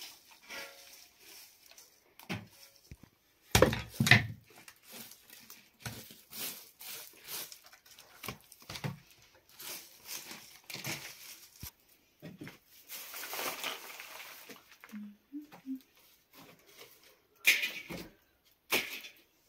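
Scattered knocks, taps and rustling of things being handled by hand, with louder knocks about four seconds in and twice near the end.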